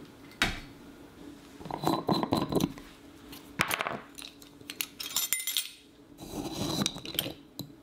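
Glass salt jar being handled and its lid opened: a sharp click, then several clusters of glassy clinks, taps and short scraping rattles.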